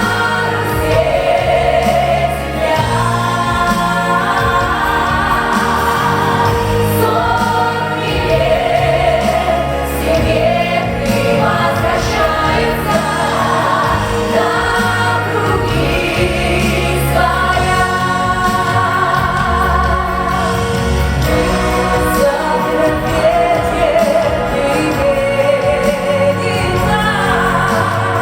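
A vocal ensemble singing a song in choral harmony over instrumental accompaniment with a steady bass line.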